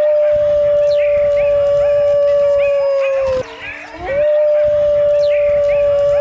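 Wolf howling: two long howls, each held at one steady pitch for about three and a half seconds and dropping at its end, the second starting about four seconds in. Faint short chirps sound behind them.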